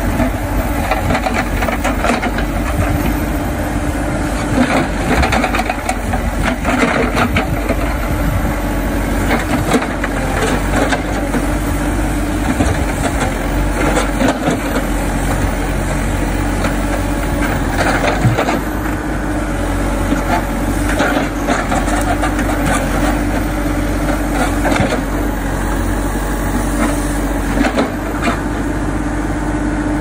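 Hidromek 102S backhoe loader's diesel engine running steadily under hydraulic load as the backhoe arm digs, with irregular scrapes and knocks from the bucket working in mud and earth.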